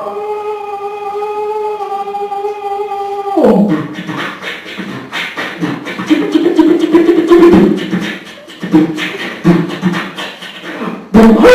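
A man's voice making sound effects: a steady held note for about three and a half seconds, then a run of rhythmic beatboxing.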